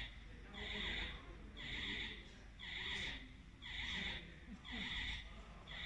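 Self-propelled scissor lift's warning alarm beeping steadily, about one half-second beep a second, as the platform is lowered.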